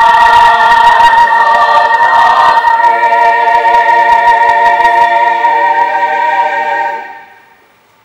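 Voices singing together in a choir, holding long sustained chords with a slight change of notes partway through, then dying away about seven seconds in.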